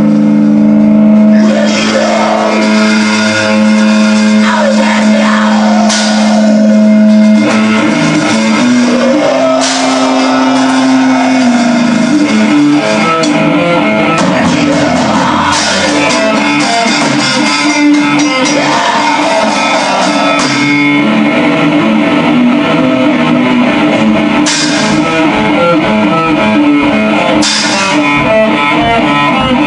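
Black metal band playing: electric guitars and drum kit, with a cymbal crash every few seconds. Held guitar notes for the first ten seconds or so give way to denser riffing.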